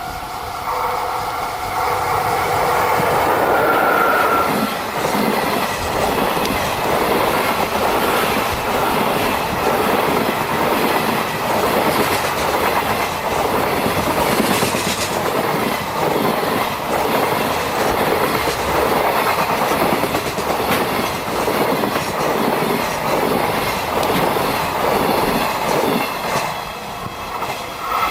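A long train passing close by, its wheels clattering steadily over the rail joints for about twenty seconds before easing off near the end. A level-crossing bell rings at the start and fades within the first second or so.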